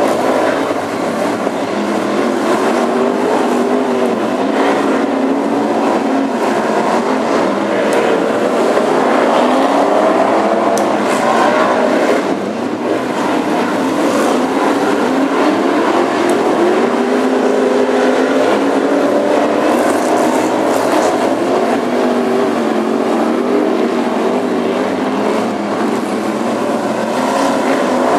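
Several BriSCA F1 stock cars' V8 engines racing together, their pitches rising and falling as the cars accelerate and back off, with a brief dip in loudness about twelve seconds in.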